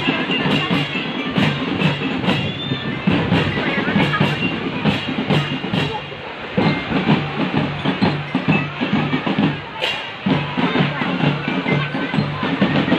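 School marching drum band playing: marching snare, tenor and bass drums beat a steady rhythm while bell-lyres ring out the tune over them.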